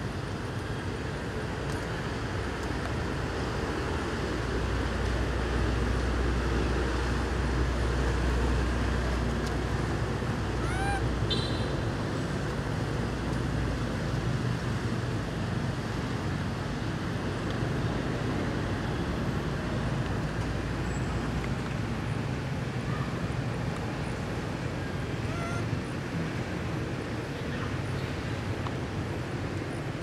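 Outdoor background ambience: a steady hiss with a low rumble, heavier from about 4 to 12 seconds in. One short rising squeak about 11 seconds in.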